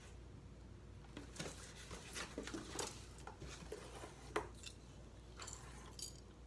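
Light handling noises: a run of small knocks, clinks and rustles as ceiling fan parts and packaging are moved about, with the sharpest knock about four seconds in.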